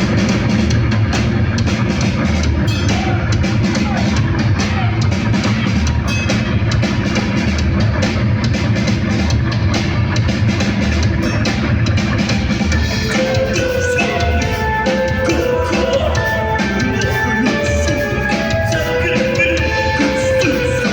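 A rock band playing live, drum kit and guitars together, loud and dense throughout. A higher melody line comes in about two-thirds of the way through.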